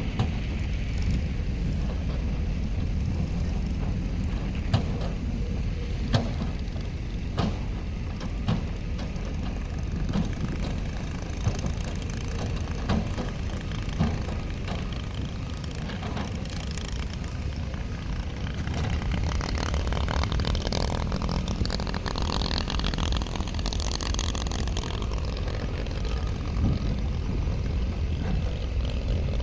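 Heavy diesel earthmoving machinery running steadily with a low engine rumble, with sharp knocks and clanks now and then.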